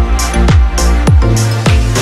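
Background music with a steady electronic beat: deep kick drums a little under twice a second, a light hiss of hi-hats between them, and sustained bass and chords.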